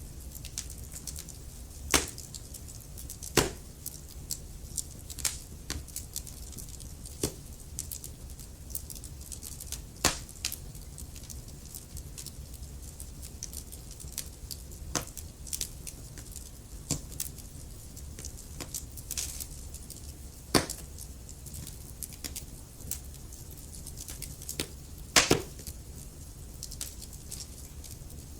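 Wood fire crackling in a fireplace: irregular sharp pops and snaps over a low steady rumble of the flames, with a few louder pops about 2, 3, 10, 20 and 25 seconds in.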